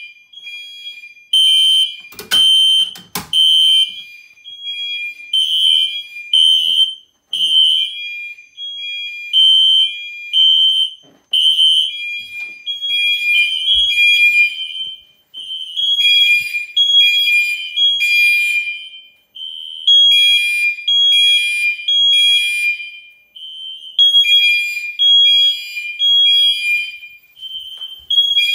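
Fire alarm horns of a home-installed fire alarm system sounding on test in the code-3 temporal pattern: pulsed beeps in groups with short pauses between. Two horns of different pitch sound slightly out of step, with a couple of sharp knocks about two to three seconds in.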